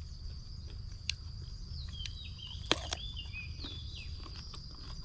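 Outdoor ambience: a steady high insect drone over a low rumble, with a few sharp clicks, the loudest about halfway through, and a short wavering high call in the middle.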